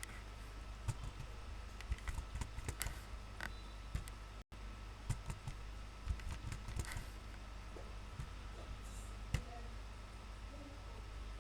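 Computer keyboard typing and mouse clicks: scattered, irregular taps over a steady low hum. The sound cuts out for an instant about halfway through.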